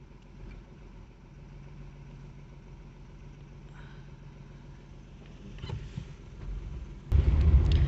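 A car moving slowly, heard from inside the cabin: a low, steady engine and road hum. About seven seconds in it jumps abruptly to a much louder low rumble.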